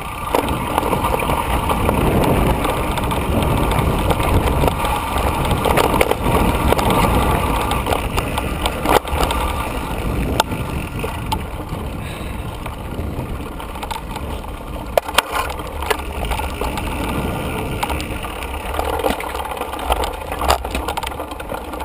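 Mountain bike running fast down a dirt trail: tyres rolling over dirt and gravel and wind rushing over the helmet- or bike-mounted camera, with the bike rattling and giving sharp knocks over bumps several times.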